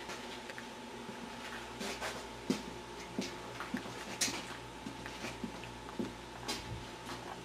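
Scattered light knocks and clicks, irregularly spaced, as small metal parts and tools are handled on a workbench, over a faint steady hum.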